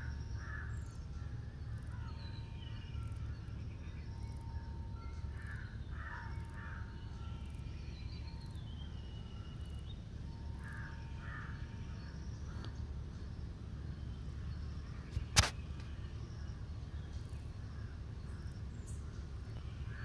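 Outdoor forest ambience: birds calling at intervals, including crows cawing, over a steady low rumble. A single sharp click about fifteen seconds in is the loudest sound.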